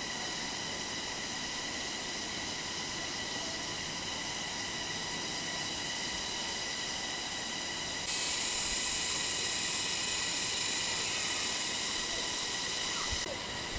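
Steady high-pitched insect chorus in the forest, a dense shrill drone. It gets louder and brighter about eight seconds in and drops back shortly before the end.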